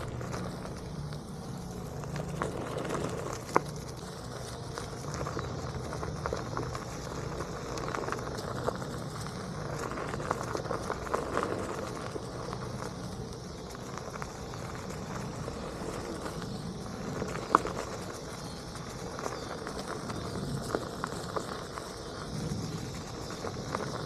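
Onewheel electric board rolling along a woodland trail: a steady tyre and rolling noise with a low hum, scattered crackles from the ground, and two sharp clicks, a few seconds in and again past the middle.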